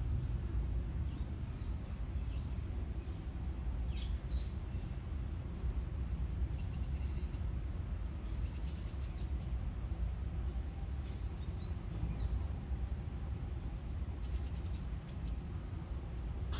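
Small birds chirping in short high clusters several times, over a steady low rumble of outdoor background noise.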